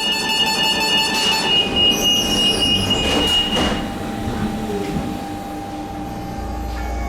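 Train moving through the station with steady, high-pitched wheel squeal. Several tones die away within the first second and a half, and one high tone carries on to about four seconds in, over the rumble of the train.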